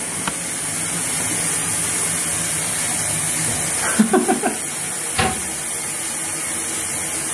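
A steady hiss, as of water running or a fan, that starts just as the bathroom door opens and holds level throughout. A single sharp click comes about five seconds in.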